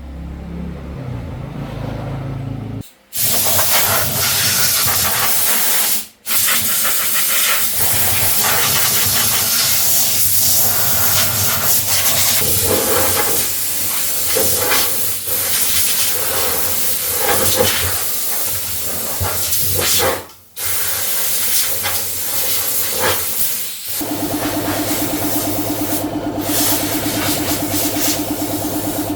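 Loud steady hiss of a high-pressure spray gun being triggered, with brief cut-offs three times as the trigger is released. Near the end a motor's steady pitched hum runs under it.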